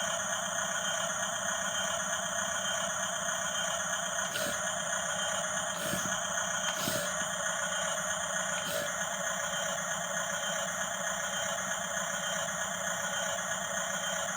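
Radio-controlled model bulldozer's small electric motors and gearboxes whining steadily. Four sharp clicks or knocks come in the middle stretch.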